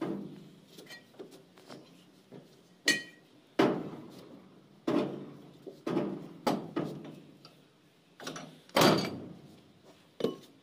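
A long steel bar struck and levered against a shaft fitting on the side of a Swaraj 8100 combine harvester, making about ten irregular metal knocks, each with a short ring.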